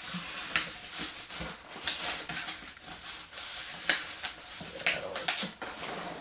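Glossy paper flyers rustling and crackling as they are handled and flipped over a cardboard box, with several sharp crackles, the loudest about four seconds in.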